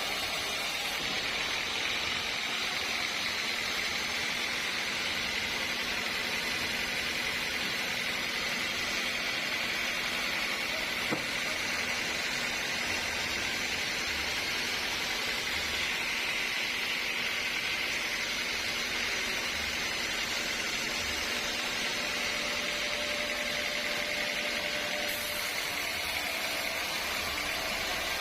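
Sawmill machinery running steadily, a constant noisy whir with no change in level, with a single sharp click about eleven seconds in.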